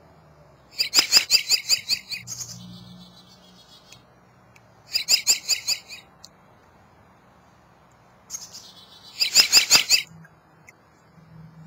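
American robin singing: three short bursts of rapid, high, repeated notes a few seconds apart.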